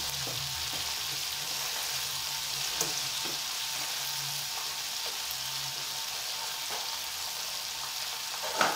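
Flour-coated chicken pieces deep-frying in hot oil in a wok: a steady sizzle, with a few faint clicks and a louder knock just before the end.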